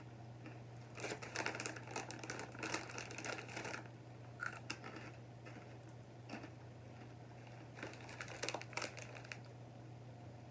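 Short bouts of crisp crackling from crunchy Cheetos being eaten and their plastic snack bag being handled, about a second in and again near eight seconds.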